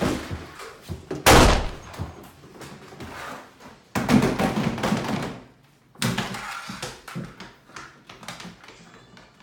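Loud thuds and bangs in a small room: a hard slam about a second in, the loudest, then more heavy thumps at about four and six seconds, with lighter knocks between.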